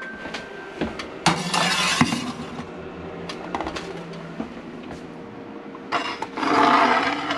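Kitchen handling noise: scattered clicks and clinks of dishes and trays being moved about, with a longer clattering, rustling stretch about a second in and another near the end.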